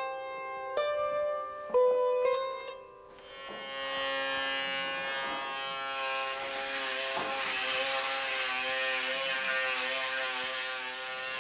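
A plucked string instrument plays a few single notes that ring and fade. Sustained tones follow, and an electric shaver buzzes under them in the second half.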